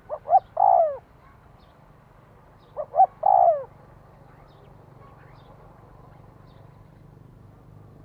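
Spotted dove cooing: two calls about three seconds apart, each two short notes followed by a longer coo that falls in pitch at its end.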